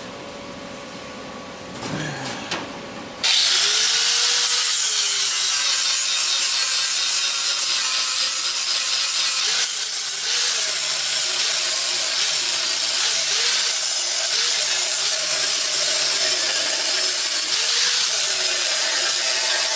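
Electric angle grinder, comes in suddenly about three seconds in and runs steadily, grinding down welds on the truck's sheet steel. Its pitch dips and recovers repeatedly as it bears on the metal. A few brief handling sounds come just before it.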